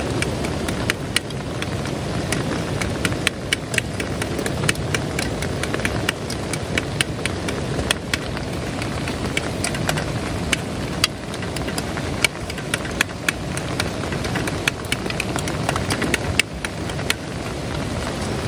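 Portable butane cartridge stove burning steadily under an aluminium pot, with many irregular sharp taps over the burner noise as the food is stirred.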